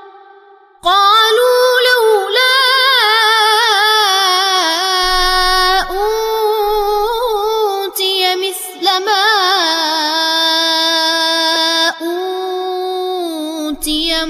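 A boy's solo voice chanting Quran recitation in the Warsh reading, in long, drawn-out notes that waver and turn in pitch. It comes in about a second in, after a short pause for breath.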